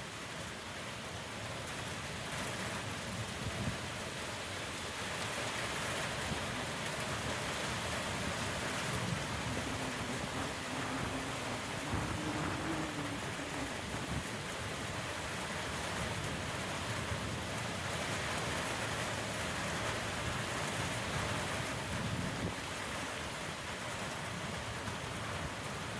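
Heavy rain pouring steadily in a storm.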